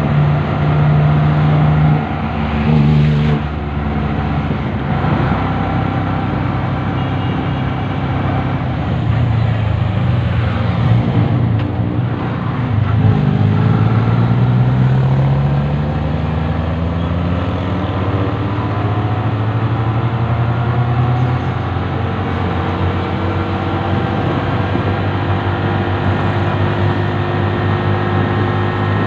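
Motor vehicle engine running on the move, with wind and road noise. Its pitch dips and then climbs again about halfway through as the speed changes.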